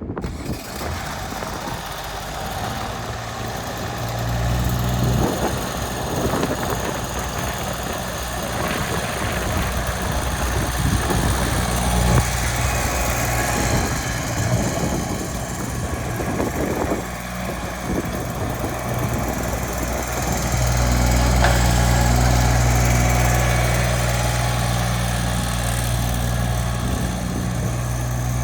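Diesel engine of a Grasshopper 325D zero-turn mower running with a steady low hum, growing louder about twenty seconds in.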